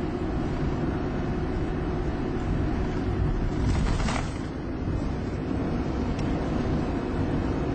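Car driving at road speed, heard from inside the cabin: a steady rumble of engine and tyres on the road, with a brief louder hiss about four seconds in.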